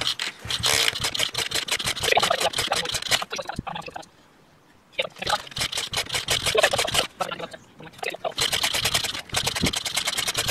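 Flooded pit bike engine being kicked over repeatedly with the fuel off to clear it. The cranking comes as rapid mechanical clatter in three spells, with short pauses about four and eight seconds in, and the engine does not catch.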